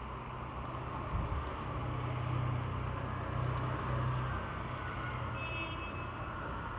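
A motor vehicle's engine running nearby with a steady low hum that swells between about two and four seconds in. A short high beep sounds near the end.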